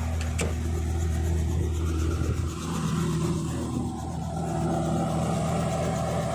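Small helicopter's engine running steadily on the pad, its tone shifting a little about two and a half seconds in, with one short click near the start.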